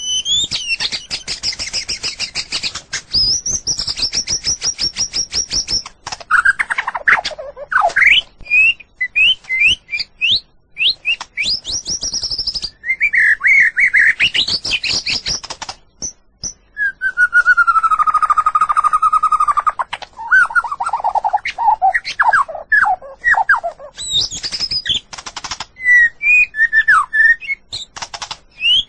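White-rumped shama singing a long, varied song: fast rattling trills, clear sliding whistles and quick chattering phrases, with short pauses between phrases.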